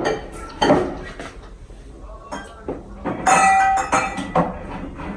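Several sharp clinks and knocks of hard objects, with the busiest clatter a little over three seconds in, where one strike rings briefly.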